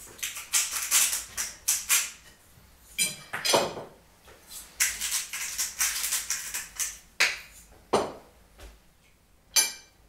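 Salt shaker shaken over a plate of food in repeated quick rattling bursts, thickest through the first seven seconds, with a few single shakes and clinks of plate and cutlery near the end.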